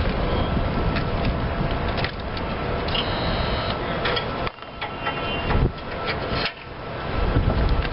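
Big Dog Black Jack ZTR mower's Kohler 25 HP gas engine running, with rattling and clicking over a steady low rumble. The sound drops away sharply twice, about four and a half and six and a half seconds in, and comes back each time.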